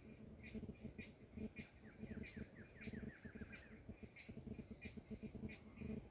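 Forest insect chorus: a steady high-pitched cricket-like trill with regular clicking pulses a little under twice a second. About two seconds in, a bird adds a quick run of short falling notes lasting about a second and a half.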